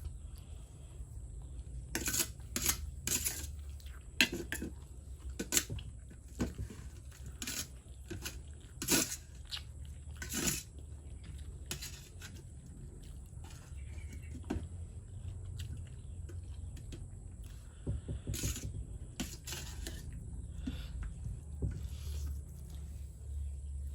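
Cutlery clicking and clinking against a plate in irregular sharp strikes, with chewing of fried noodles between them. A low steady hum sits underneath.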